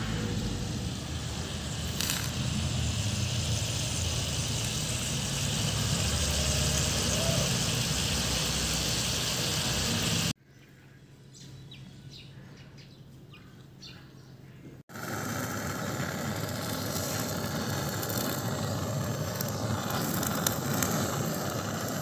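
A wood fire burning under a pot with a steady rushing noise. After a cut, a much quieter stretch with a few faint short ticks. After another cut, a handheld gas torch hisses steadily as its flame singes the skin of a plucked duck.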